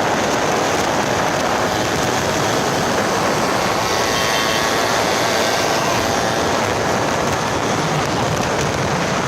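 Small brush-cutter engine fitted to a converted bicycle running steadily under way, a loud, even noisy drone.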